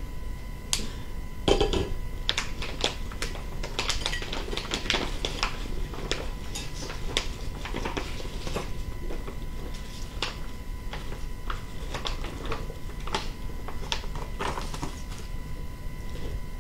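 Cooked shrimp being tipped and shaken out of a plastic bag onto a ceramic plate: an irregular run of light clicks and clatters of shells on the plate, with the bag crinkling.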